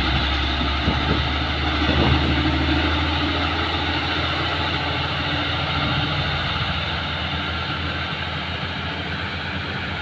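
LiuGong 4180D motor grader's diesel engine running steadily under load as it grades a dirt road, with a deep hum and a few knocks in the first couple of seconds. The engine gradually fades as the grader moves away.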